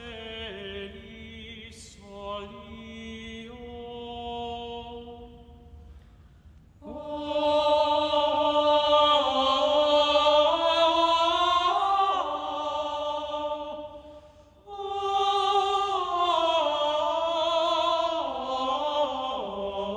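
Sung chant as background music: slow, held vocal notes moving in steps, in three phrases. The first phrase is soft; the singing comes in louder about seven seconds in and breaks off briefly near fifteen seconds before a last phrase.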